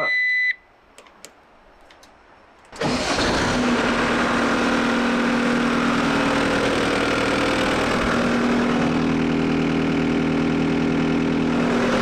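A short electronic beep, then about three seconds in the New Holland C232 skid steer's diesel engine starts abruptly and runs steadily.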